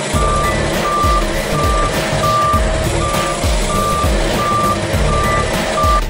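Reversing alarm of a tandem asphalt road roller beeping steadily, about nine beeps, one every 0.7 s, over the machine's running engine.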